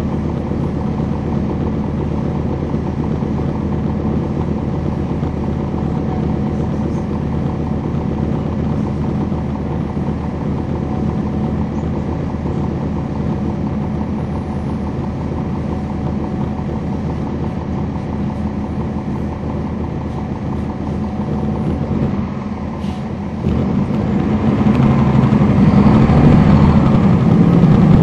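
Cummins ISL9 diesel engine of a 2011 NABI 40-foot transit bus, heard on board, running steadily. A little over 20 seconds in it drops away briefly, then grows steadily louder as the engine revs up.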